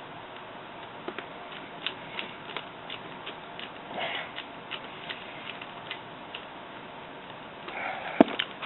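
Small screwdriver turning screws into a laptop's screen hinge, giving a run of light clicks about three a second, then one sharper click near the end.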